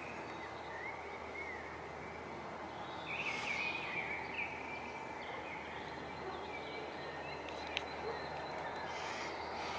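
Wild birds chirping and calling in short, warbling phrases over a steady background hiss of outdoor ambience, with one sharp tick near the end.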